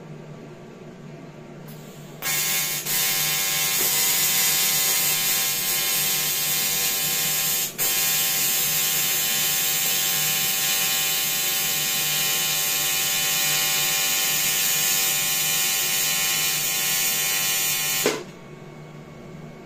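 AC TIG welding arc on aluminium from an Rtech 211 AC/DC TIG welder, buzzing steadily for about sixteen seconds. It strikes about two seconds in, dips for a moment twice, and cuts off sharply near the end.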